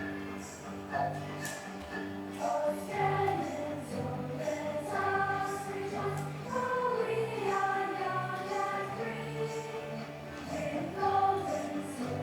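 Choir singing a slow melody of held notes over instrumental accompaniment.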